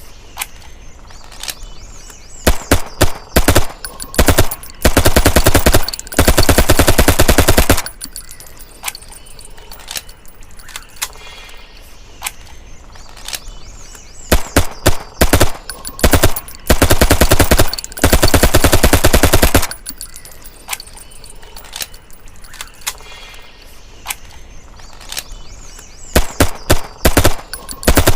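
Suppressed MAT-49 9 mm submachine gun firing on full auto. Each round of firing is a few short bursts and then a long burst of about two to three seconds, and the sequence comes round again about every twelve seconds.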